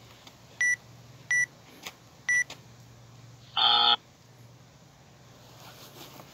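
Workout countdown timer beeping the last seconds: three short, high beeps about a second apart, then one longer beep as it reaches zero, marking the end of the 20-minute timed workout.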